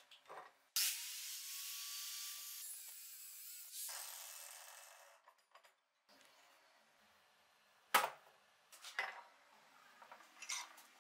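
An angle grinder runs for about four seconds and then stops. After it come a few sharp metal clanks and knocks as a threaded steel vise screw is set and clamped in a bench vise, the loudest about eight seconds in.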